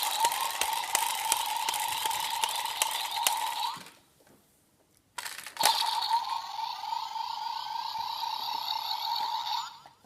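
Power Rangers Dino Charge Morpher toy playing an electronic sound effect through its small speaker, twice: a harsh, buzzy tone with rising sweeps lasting about four seconds, a pause of about a second and a half, then the same again.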